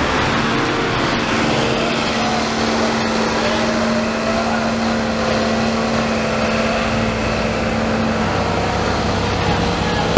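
Engine of a police water cannon truck running close by: a steady drone and hiss with a held low tone that stops near the end. A sharp bang comes right at the end.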